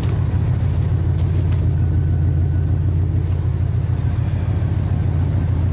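A 1986 Chevy K-10 pickup's engine idling, heard at the tailpipe of its 2.5-inch stainless steel exhaust with resonators: a low, even exhaust rumble.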